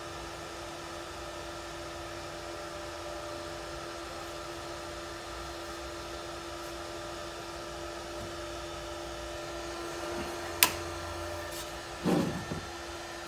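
Cooling fan of a Start Kemper inverter semi-automatic (MIG) welder running steadily, a constant hum with a steady whine, the welder switched on and idling. A single sharp click about ten and a half seconds in and a short knock and rattle about a second later, from handling the machine.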